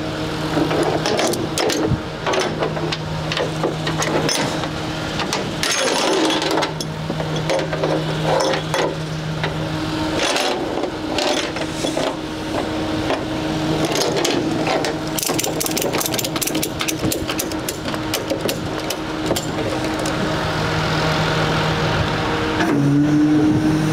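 A vehicle engine running with a steady hum that drops out and comes back several times, under a clatter of short metallic clicks and knocks; the hum steps up slightly in pitch near the end.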